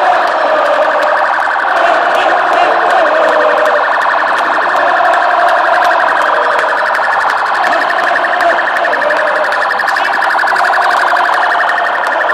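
Police car siren sounding continuously with a fast, even pulsing, loud and steady, over the noise of a big crowd.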